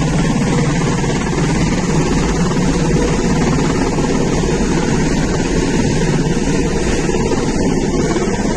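Helicopter running steadily, its engine and rotor making a loud, even noise with a fast pulsing beat.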